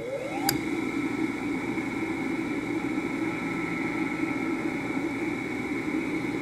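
1 hp Westinghouse machine-tool motor, wired with a start capacitor and potential relay and fed 120 V instead of its rated 220 V, spinning up with a rising whine. About half a second in there is a click as the relay drops out the start capacitor. It then runs at speed with a steady hum and a high whine, with bearings that the owner finds a little tired.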